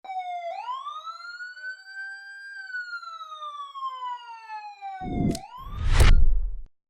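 A siren wailing: one tone climbs, then slowly falls, then starts to climb again. About five seconds in it is cut by a short swoosh, and a louder hit with a deep boom follows near the end.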